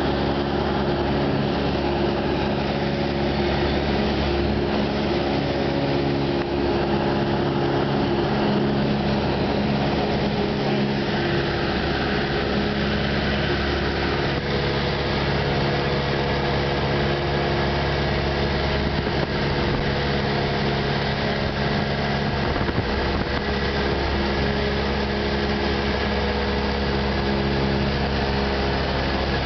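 Cessna 172's piston engine and propeller droning steadily in flight, heard from inside the cockpit.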